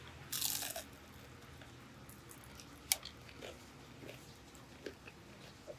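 A crunchy bite into a fried mandu dumpling about half a second in, then close-up chewing with a few sharp crunches, the sharpest about three seconds in.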